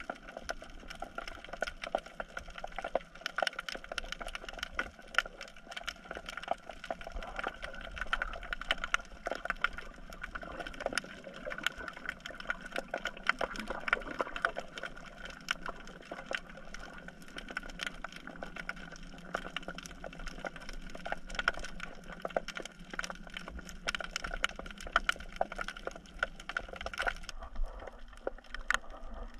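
Underwater reef ambience heard through a submerged camera: a dense, irregular crackle of clicks and snaps over a steady hiss.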